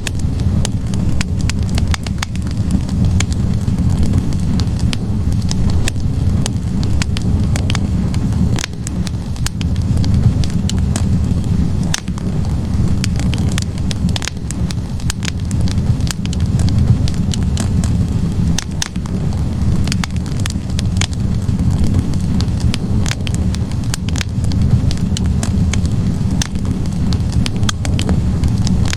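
Wood fire burning in a fireplace: a steady low rumble of flames with frequent sharp crackles and pops from the logs.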